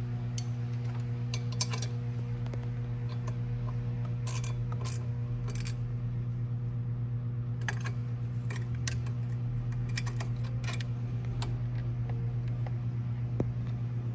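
Small ratchet wrench clicking in short runs and metal nuts and bolts clinking as the catch can is bolted down to its bracket. A steady low hum runs underneath.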